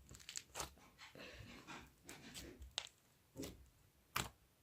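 Foam slime with foam beads being squished and stretched in the hands: faint soft squelching and crackling, with a few short, sharper squelches in the second half.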